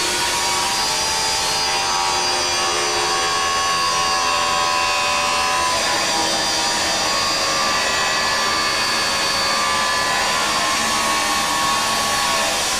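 Continuous loud noise of metal-cutting work on the steel lifter liners inside a ball mill shell: a steady hiss with several drifting whistle-like tones over it.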